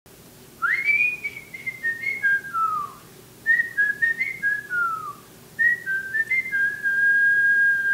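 A person whistling a short tune in three phrases, each stepping down in pitch and ending with a downward slide; the last phrase ends on a long steady held note.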